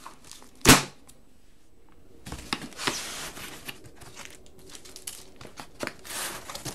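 Cardboard comic book storage boxes being handled: one sharp knock just under a second in, then from about two seconds in a run of cardboard rustling and scraping with small clicks.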